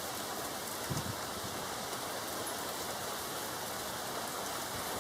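Heavy rain in a severe storm, falling with a steady hiss, with one brief low thump about a second in.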